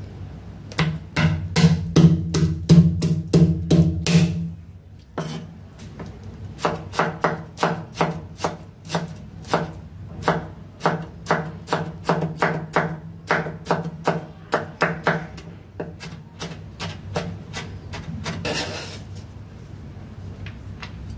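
Cleaver chopping garlic on a wooden cutting board: a quick run of sharp knocks, a pause of about a second, then a long run of steady, regular knocks. A short scrape follows near the end as the blade scoops the minced garlic off the board.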